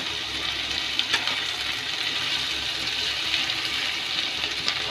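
Sliced onions sizzling with a steady hiss in hot mustard oil in a kadhai, with a few light ticks and scrapes of a metal spatula stirring them.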